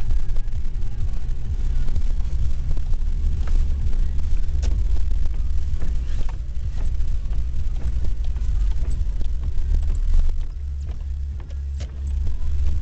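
A vehicle's engine running under load, driving through snowdrifts, heard from inside the cab as a steady low rumble with scattered knocks and rattles. The engine noise eases off for a second or so near the end, then picks up again.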